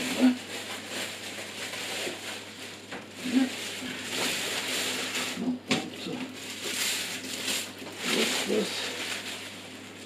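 Clear plastic wrapping crinkling and rustling in uneven bursts as it is pulled off a steel PC case, with a sharp click near the middle.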